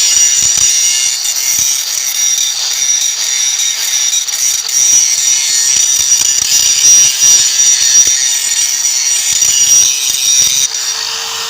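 DeWalt DCG414 cordless 125 mm angle grinder grinding down a steel weld seam: a loud, steady, high-pitched grinding whine. Near the end the high whine fades and a lower steady tone takes over.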